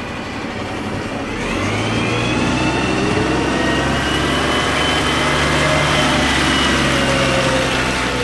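Motor vehicle engine running steadily, with a whine that rises in pitch about a second and a half in and then holds.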